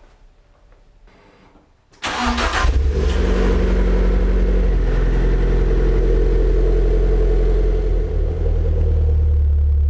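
Fiat 500 Abarth's turbocharged four-cylinder engine with a Ragazzon exhaust starting about two seconds in, then settling into a steady, loud idle.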